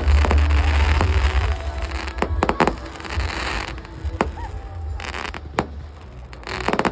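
Fireworks display: aerial shells bursting with deep booms, heaviest in the first second and a half, then sharp bangs and bursts of crackling at intervals as further shells go up and break.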